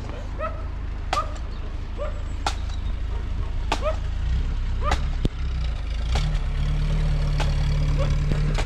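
A motor vehicle engine running in a steady low rumble that grows fuller about six seconds in. Over it come sharp, even taps about every second and a quarter.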